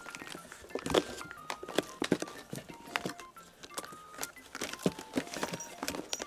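A cat's paws and claws scratching and knocking on a cardboard box as it bats at a wand toy, in irregular scrapes and taps. Light background music with short plucked notes plays under it.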